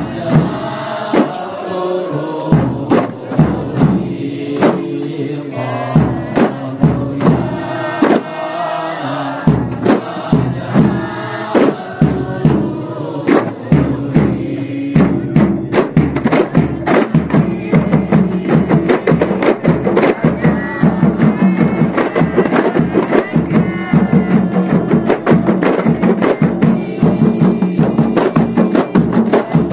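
A kompang troupe of Malay hand-held frame drums with men chanting over slow, evenly spaced drum strokes. About halfway through, the drumming turns into a fast, dense interlocking rhythm.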